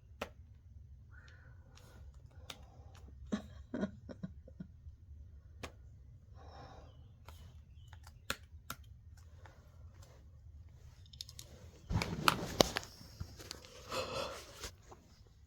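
A person's breathing close to the microphone, with scattered small clicks and rustles, then a loud breathy rush about twelve seconds in and a shorter one about two seconds later.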